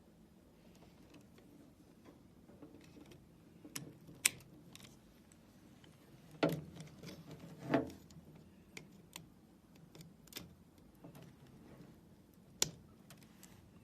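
Scattered small clicks and handling sounds as wire connectors are pushed into the sockets of a tennis ball machine's replacement control panel, with two louder knocks about six and a half and almost eight seconds in.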